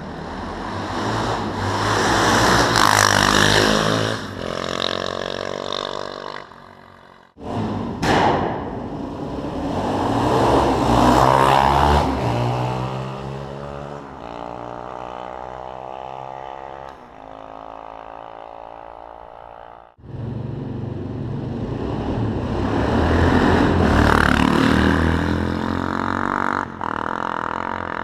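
Single-cylinder supermoto engines of Suzuki DR-Z 400 SMs and a Honda FMX, on aftermarket exhausts with the dB killers removed. They are revved in three separate takes, each run up and then dropping back toward idle. Two abrupt cuts, about a third and two thirds of the way in, join the takes.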